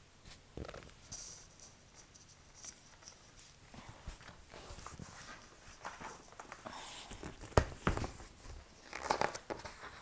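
Faint rustling and handling noise with a few soft knocks and one sharp click about three-quarters of the way through.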